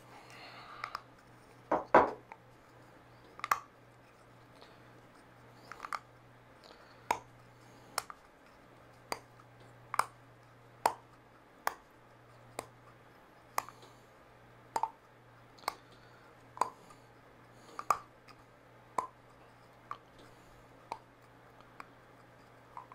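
Sharp little clicks, about one a second, as a part is worked loose by hand from the Solatecs C1000 brush's blue plastic assembly during disassembly. A faint steady low hum runs underneath.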